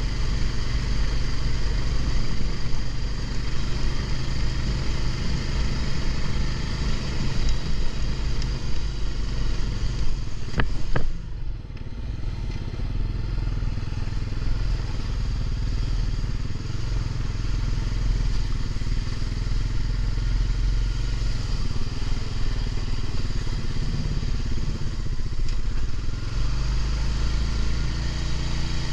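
Honda ATV's single-cylinder engine running as the quad rides along a rough dirt trail, with a heavy low rumble. Two sharp knocks come about eleven seconds in, after which it runs quieter for a few seconds.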